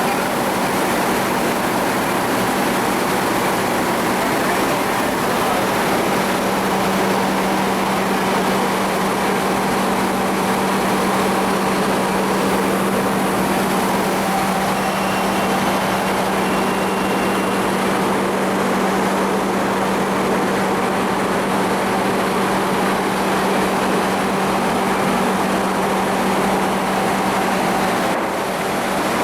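Sawmill machinery running steadily: a loud, even mechanical din with a constant low drone, dipping briefly near the end.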